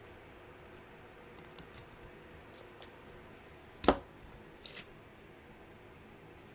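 Razor knife cutting the nylon binding cord leads, giving a few light clicks, then a sharp click about four seconds in, the loudest sound, and a quick double click a little later.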